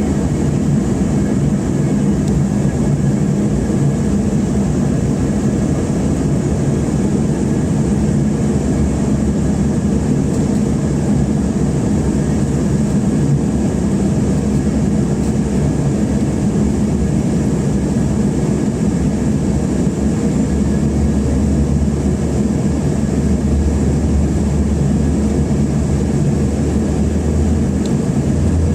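Steady cabin noise of an airliner in flight, its engines and rushing airflow heard from inside the passenger cabin, with a steady low hum. About twenty seconds in a deeper rumble grows stronger.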